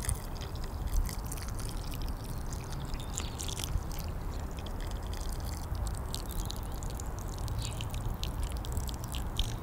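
Water pouring from a watering can's spout onto garden soil, with scattered splashes and drips.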